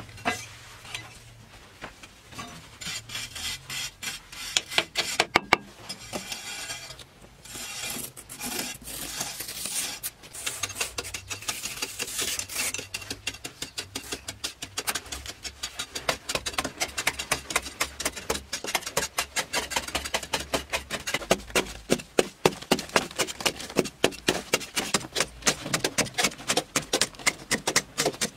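Metal hand tool scraping and chipping at a packed clay-earth wall, the first half mostly rasping scrapes, then a quick, steady run of repeated strikes several times a second.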